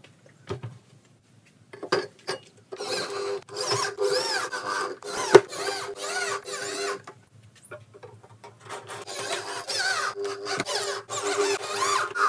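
Handheld cordless drill/driver running in bursts of a few seconds against the wooden subwoofer cabinet and its metal mesh grille, a steady motor whine mixed with wavering, high-pitched scraping. A few clicks come first, the drill starts about three seconds in, pauses around eight seconds and runs again near the end.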